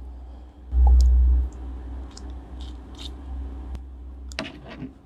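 Grilled lobster tail being pulled apart by hand close to the microphone: soft squishy tearing of the meat and small crackles and clicks of the shell, with a denser run of crackles near the end. About a second in comes a deep low thud lasting over half a second.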